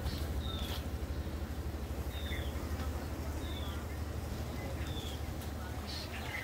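A bird repeats a short, high, falling call four times, about one every second and a half, over a steady low rumble.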